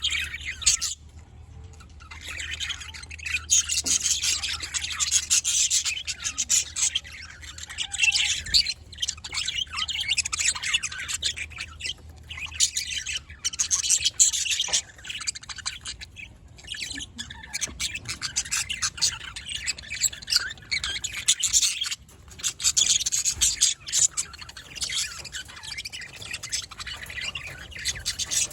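Budgerigar chicks calling: harsh, rasping begging squawks and chirps, many together, in bouts of a few seconds with short breaks between.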